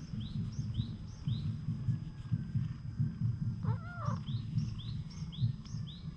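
Tabby cat purring close to the microphone as it is stroked under the chin: a steady, pulsing low rumble. Over it, a small bird chirps again and again, and a short arched call sounds just before four seconds in.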